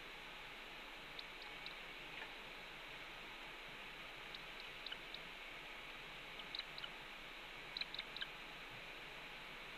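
Steady hiss from an outdoor nest-camera microphone, with a few faint, short, high ticks in small clusters.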